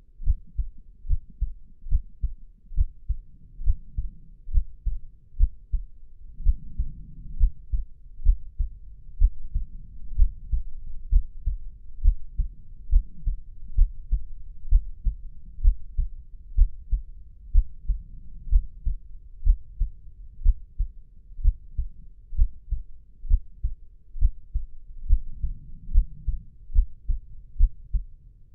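Human heartbeat: a steady lub-dub of low thumps, about one beat a second.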